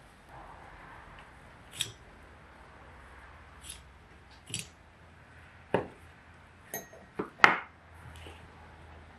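Scattered metallic clinks and light knocks from a Dellorto DHLA carburetor being taken apart by hand while its throttle spindle is worked out, a steel rod and small parts knocking against the aluminium body. About seven separate sharp taps, the loudest a little before the end.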